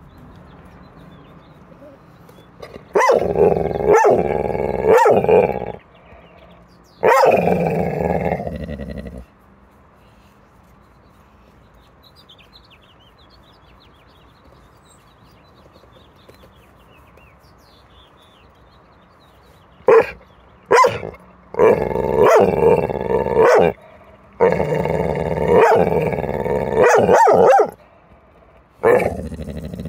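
Pit bull vocalizing in long, drawn-out grumbling calls of one to three seconds each: a few in the first third, then a quiet stretch, then a run of five or so in the second half.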